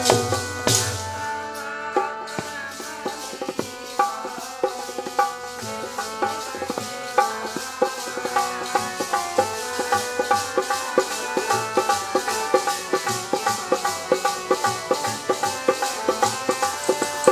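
Instrumental interlude of Sikh kirtan between sung lines: harmonium holding sustained notes over a steady tabla beat, which settles into its rhythm a few seconds in.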